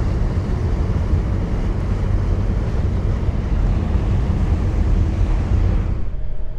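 A passenger ferry's engines rumbling low while its propeller wash churns the water as the boat turns, with wind buffeting the microphone. The upper hiss cuts away suddenly near the end.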